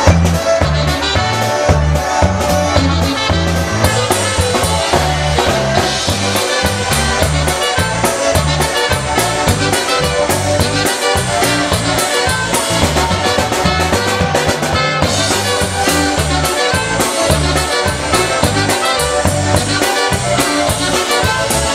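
Live polka band playing with drum kit, a steady alternating bass line and a saxophone carrying the tune.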